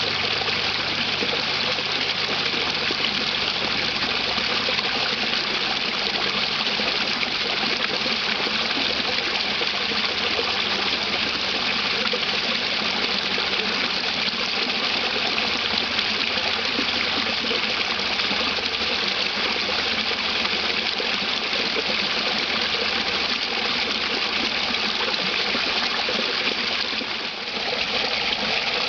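Small creek waterfall: water pouring over a rock ledge and churning in the pool below, a steady splashing that dips briefly near the end.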